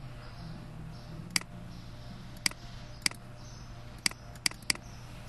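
Computer mouse clicking six times at irregular spacing, sharp single clicks as windows are closed and switched.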